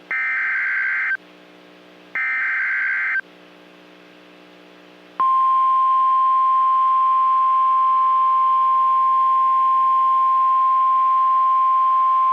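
NOAA Weather Radio alert signal. Two harsh, buzzing bursts of SAME digital header data, about a second each with a second between them, are followed about five seconds in by the steady 1050 Hz warning alarm tone, a single loud pure tone that holds on. This sequence signals that a new warning, here a tornado warning, is about to be read.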